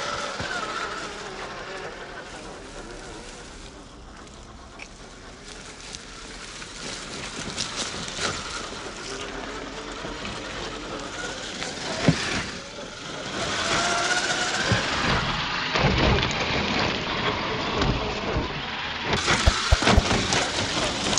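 Traxxas TRX-4 1/10-scale RC crawler's electric motor and gear drivetrain whining, rising and falling in pitch with the throttle, as the tyres crunch over sand and river stones. Sharp knocks come about twelve seconds in and again near the end as the truck bumps over rocks and a log.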